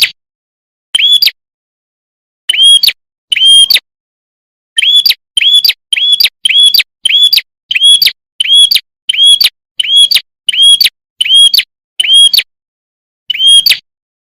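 Call of the prenjak kepala merah, a prinia, played as a bird-luring recording. Short, identical arched chip notes repeat over and over: spaced out at first, then an even run of about two a second, with a short pause near the end.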